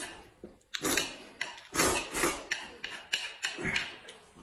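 A man slurping noodles from a plate held at his mouth, a run of short, noisy slurps about two a second.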